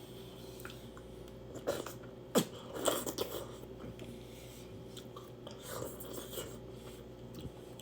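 Close-up mouth sounds of someone eating a seafood boil: chewing, with a run of short, sharp wet clicks about two to three seconds in and a softer few near the end.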